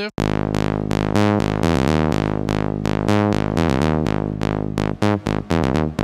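Serum saw-wave synth bass playing a repeating tech-house bass line. The notes ring long and sustained, then turn short and plucky near the end as the envelope's decay is turned down.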